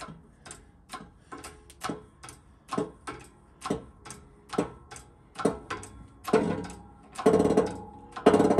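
Hydraulic shop press being pumped to press a new wheel bearing onto a rear axle shaft: the pump handle clicks about twice a second, then from about six seconds in come louder, longer creaking and ringing sounds from the metal as the bearing goes on under load. These are normal sounds for the press fit.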